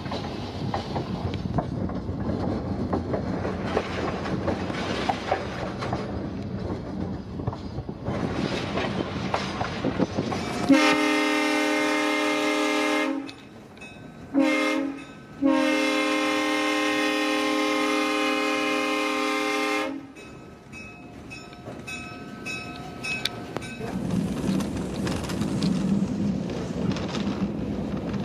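Diesel locomotive's air horn sounding a long blast, a short one, then a longer one of about four seconds, over the rumble and clickety-clack of the moving train's wheels on the rails.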